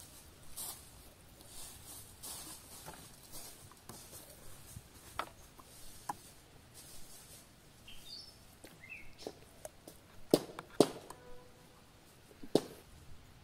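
Wooden spice grinder being twisted, a soft repeated crunchy grinding, over the first few seconds. Later come a few sharp clicks and knocks from a knife and a glass oil bottle being handled, loudest near the end. A bird chirps briefly.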